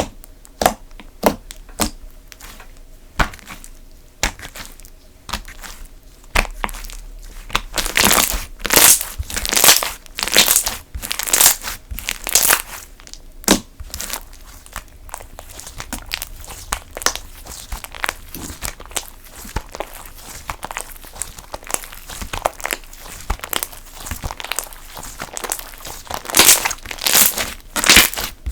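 Slime being squeezed, poked and stretched by hand, giving irregular crackling pops and clicks, busiest about a third of the way in and again near the end.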